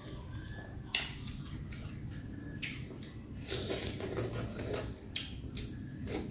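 Mukbang eating sounds from sardine noodle soup. Utensils clink sharply on a glass bowl about a second in, then come wet slurping and chewing sounds of a mouthful of noodles, with a few more light clicks.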